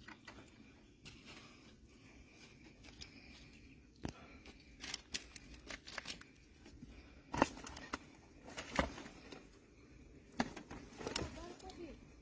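Faint handling noise on stony ground: irregular clicks, knocks and scrapes as a large fish is moved and laid down among rocks and gravel, with a few sharper knocks in the second half.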